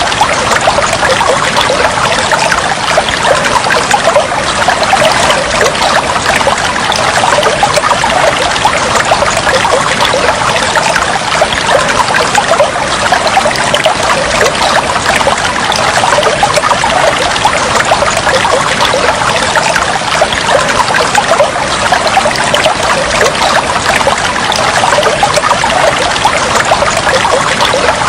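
Water trickling and flowing steadily, an unbroken stream of small splashes.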